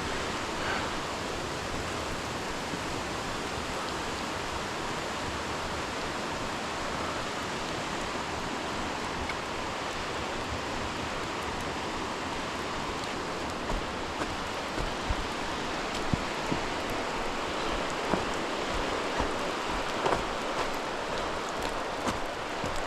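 Steady rush of running water with no let-up. From about fourteen seconds in come soft, low thumps roughly once a second.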